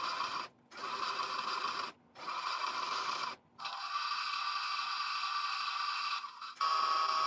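Toy front-loading washing machine running its small geared motor: a steady mechanical whirr that cuts out briefly three times. About halfway through it changes to a quieter hum with a thin steady tone, then a louder electronic tone sounds near the end.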